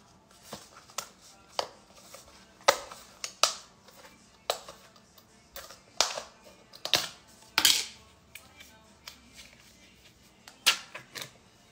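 Plastic cream cheese tub handled and its snap-on lid pried off: a series of irregular sharp plastic clicks and crinkles, with music playing faintly behind.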